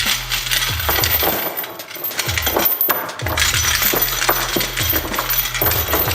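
Steel chain rattling and clinking inside a metal turbo pipe, shaken back and forth in waves of a second or two to knock weld slag and loose debris out of the pipe.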